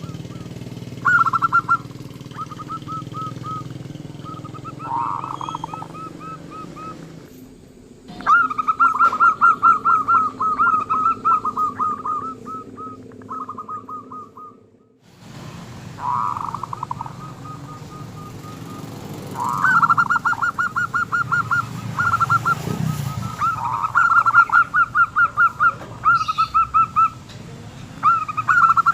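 Zebra doves (perkutut) cooing: runs of short, rapid coo notes repeated in bursts of a few seconds, with a pause near the middle and more bursts that overlap in the second half.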